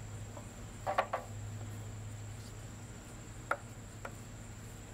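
Steady high-pitched insect chirring, crickets, over a low steady hum. A few short light knocks cut through it: a small cluster about a second in and two more later.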